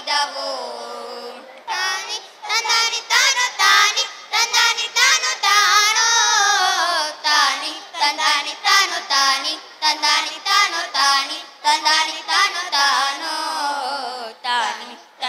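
Children singing a Kannada folk song (janapada geethe) into stage microphones, in a melodic line that glides and wavers in pitch.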